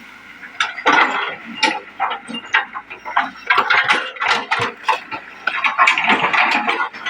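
Excavator bucket working a ditch: an irregular run of clattering knocks and scrapes, starting about half a second in.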